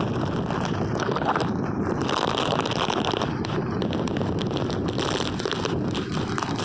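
Hurricane-force wind blowing hard and steadily, buffeting the microphone.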